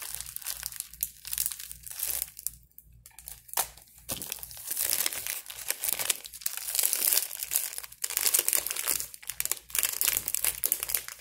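Clear plastic bag of curry powder crinkling as it is handled close to the microphone, with a short pause a few seconds in.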